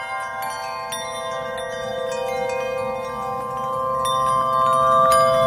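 Intro jingle of shimmering chimes: a held chord with many small high chime strikes sprinkled over it, slowly growing louder.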